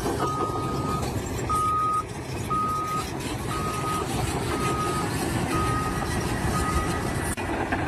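A vehicle's reversing alarm beeping at a steady pitch, seven beeps about once a second that fade toward the end, over a continuous engine rumble.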